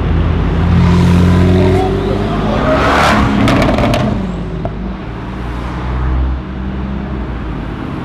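Car engine held at raised revs, then dropping back with a run of sharp pops about three seconds in, and settling to a lower rumble.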